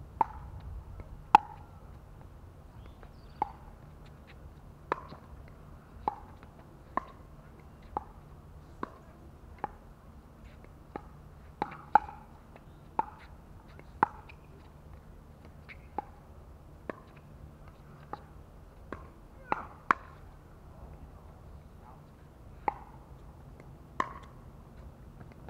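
Pickleball play: paddles striking a hard plastic pickleball in a run of sharp, ringing pops, about one a second with some quicker back-and-forth pairs, the loudest a second or so in.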